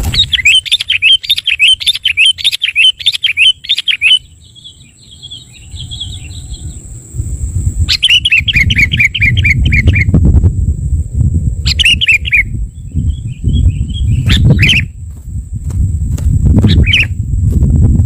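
Sooty-headed bulbuls chattering in bursts of rapid chirping notes: a run of about four seconds at the start, then shorter bursts, the longest about two seconds. Underneath are a low rumble and a steady high whine.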